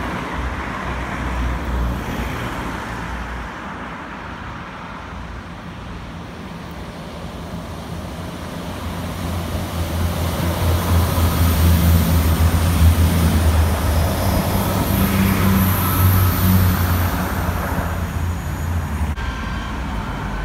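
South Western Railway Class 159 diesel multiple unit passing close by under power, its underfloor Cummins diesel engines giving a deep drone. It builds as the train approaches, is loudest about halfway through, and fades away as the train passes.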